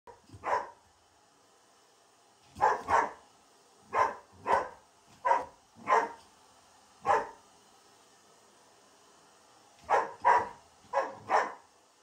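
Xoloitzcuintli (Mexican hairless dog) barking in alarm at a hair dryer: about a dozen short, sharp barks, singly and in pairs, with pauses of a second or more between groups.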